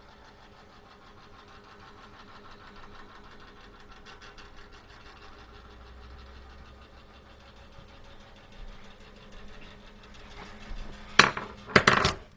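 The clock of an IKEA Dåtid oven making its steady mechanical noise, a fault that stops once its cable is disconnected. A few loud knocks near the end.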